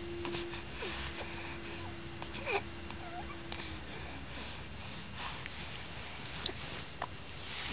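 Newborn baby making small squeaks and grunts, the loudest a short falling squeak about two and a half seconds in, over steady background hiss. A faint steady hum stops about three and a half seconds in.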